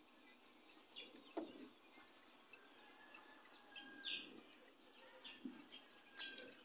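Near silence, with a few faint, short squeaks of a felt-tip marker writing on a whiteboard and faint scattered bird chirps.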